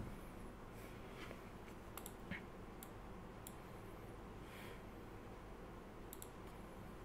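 Faint, scattered sharp clicks, about half a dozen of them, some in quick pairs, with a few soft rustles in between, over a steady low electrical hum.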